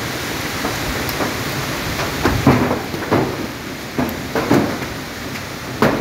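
Cyclone-force wind blowing through trees, a steady rushing noise broken by irregular short knocks and rattles.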